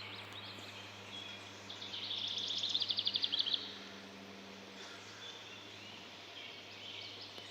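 A bird's rapid, high-pitched trill, about two seconds long, starting about two seconds in, over outdoor background with a faint steady low hum.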